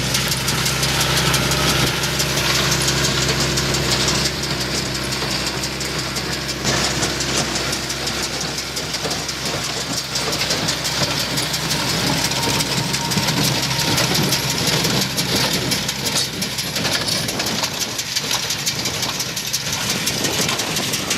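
Tractor engine running steadily while it pulls a small square hay baler working through windrowed alfalfa, the baler's rapid mechanical clatter over the engine.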